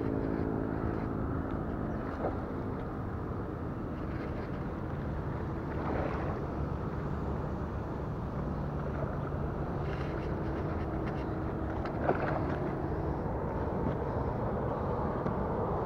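Steady low rumble of outdoor background noise, with a few light clicks and taps now and then.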